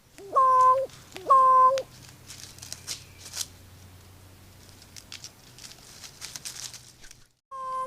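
A crow giving two strange, drawn-out calls about a second apart, each rising briefly and then holding one steady pitch for about half a second, followed by faint scattered ticks and rustling; a third call begins at the very end.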